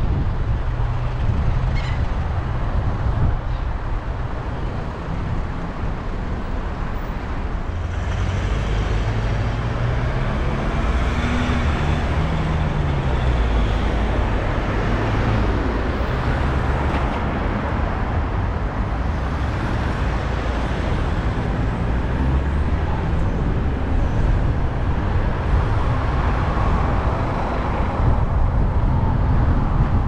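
A car being driven on a road: the engine runs with its pitch rising and falling as the speed changes, over steady tyre and road noise that grows louder about eight seconds in.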